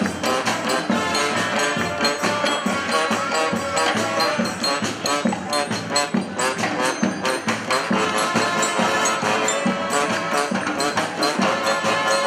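Street brass band playing an instrumental passage: horns over drums with a steady beat.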